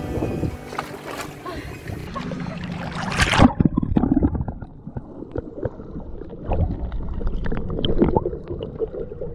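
Background music for the first two seconds. Then a loud splash as the camera goes under the sea. After that comes muffled underwater noise: a low rumble with scattered knocks from the swimmer's movements.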